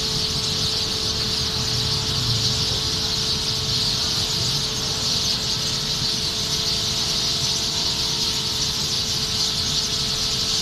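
Dense, continuous din of a very large flock of birds calling all at once, a steady high-pitched chatter with no single call standing out. A faint steady hum runs underneath.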